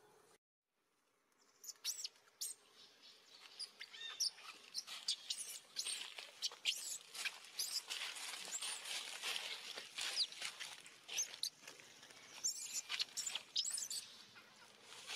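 A dense run of short, high-pitched animal chirps and squeaks, some sliding up or down in pitch, mixed with many quick clicks. It starts about a second and a half in and eases off near the end.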